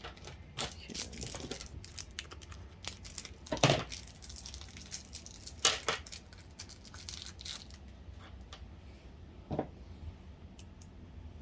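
A part being cut to size by hand: a run of irregular snips and crackles, with two louder snaps about four and six seconds in.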